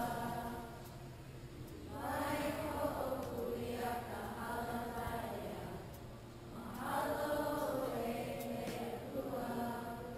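Quiet music of sustained, choir-like chords that swell and fade twice, about five seconds apart.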